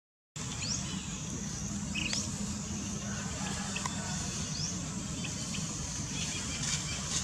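Outdoor background noise with a steady low rumble, broken by a few short, high, rising chirps from small animals or birds. The sound cuts out for a moment at the very start.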